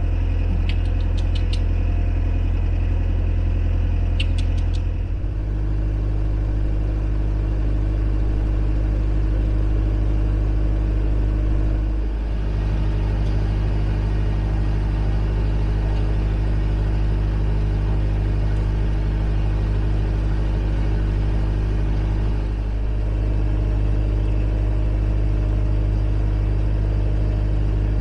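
Narrowboat's diesel engine running steadily under way, its note changing a little about five seconds in and dipping briefly twice later. A few short high chirps sound over it in the first few seconds.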